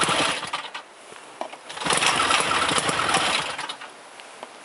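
Snowmobile engine revving hard in two long bursts, dropping back toward idle about a second in and again near the end. The machine is straining while stuck on bare, snowless ground.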